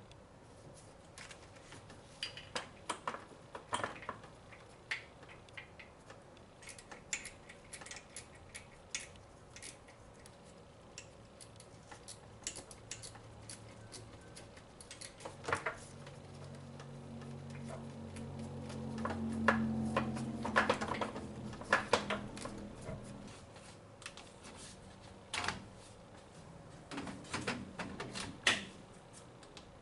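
Scattered clicks and clinks of metal tools and parts being handled during car repair work, with a low motor hum that runs for several seconds in the middle, swelling and then stopping.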